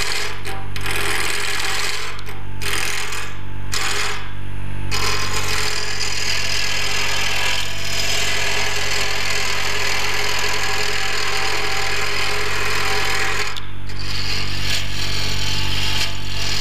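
Carbide roughing tool cutting a spinning wood blank on a lathe, turning it to a cylinder: a dense, steady hiss of shavings over the lathe motor's hum. The cutting stops for brief moments several times in the first few seconds and once more near the end as the tool comes off the wood.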